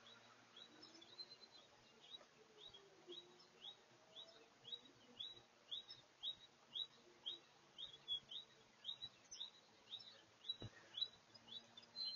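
A bird repeating a short, high chirp about twice a second, growing a little louder as it goes on. One faint click sounds near the end.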